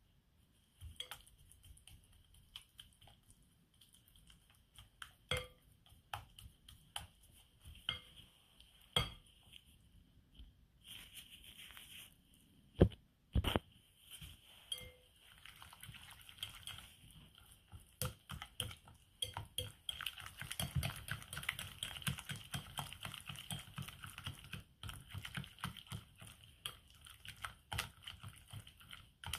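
A fork and spatula clinking and scraping against a glass mixing bowl while mashing and stirring banana batter. The clinks are scattered at first, with one sharp knock near the middle, then turn into rapid, steady fork strokes for the last third.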